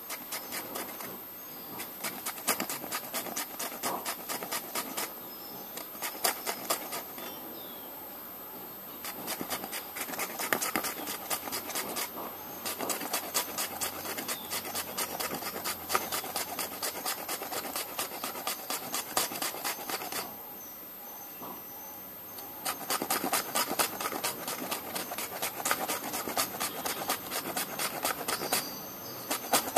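A raw potato scraped up and down a handheld metal grater, a fast rasping of several strokes a second, in runs broken by short pauses.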